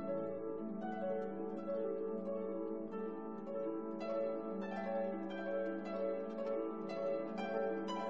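Instrumental background music: a run of plucked notes over held chords.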